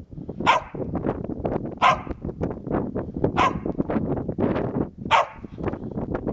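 A dog barking up at its owner, four sharp barks about a second and a half apart, asking for another snowball to be thrown.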